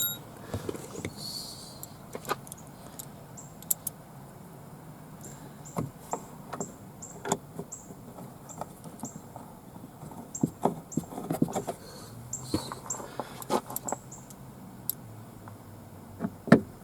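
Screws being driven by hand into a car's plastic door panel: scattered clicks and taps, with a run of short high squeaks about two a second in the middle.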